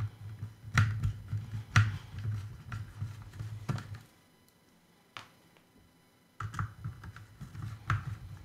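Hands handling the plastic shell of a partly dismantled Hubsan Zino Pro drone and a small screwdriver: scattered light clicks and taps over a low rubbing rumble, pausing for about two seconds midway.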